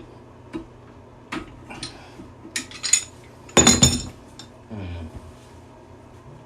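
Tool clinking and knocking against a toilet tank in a run of sharp, irregular strikes, the loudest cluster a little past halfway, while working at a stuck fitting that turns but spins freely.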